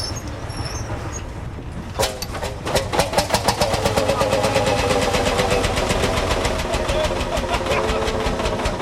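Old farm tractor engine starting about two seconds in, firing unevenly at first and then settling into a steady, even running beat.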